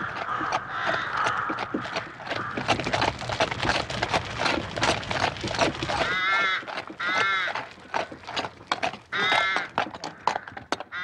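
Hooves of a horse pulling a four-wheeled carriage clop on the road, with the rumble of the wheels until about six seconds in. After that the horse's hoofbeats go on, and a few short animal calls are heard.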